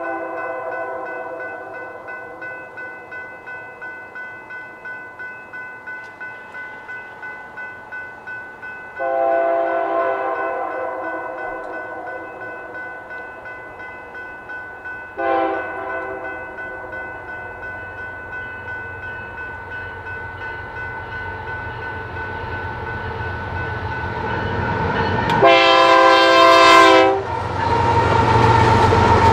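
Grade-crossing bells ringing steadily at a few strokes a second while an approaching Canadian Pacific freight locomotive sounds its horn for the crossing: a long blast, a short one, then a final louder long one. The rumble of the lead locomotives grows and they pass the crossing near the end.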